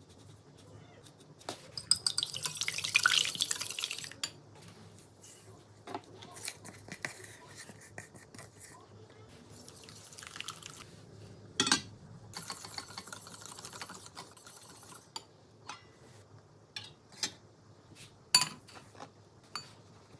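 Home-baking sounds at double speed: granulated sugar poured in a hissing stream into a plastic bowl, then a wire whisk beating eggs and sugar in a glass bowl, with scattered clinks and taps of utensils on glass and metal.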